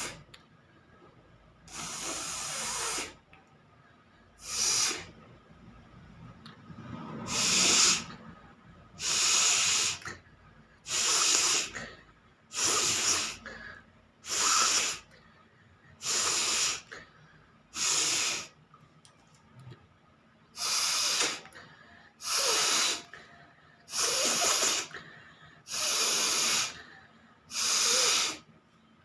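A person forcefully blowing air out through the nose, over and over: about fourteen separate hissing blows, mostly one every one and a half to two seconds, with short quiet breaks between.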